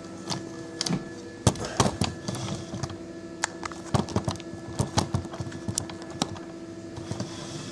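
Handling noise: a string of irregular light clicks and knocks as the camera is moved about and a hand reaches over a foam incubator, over a steady electrical hum.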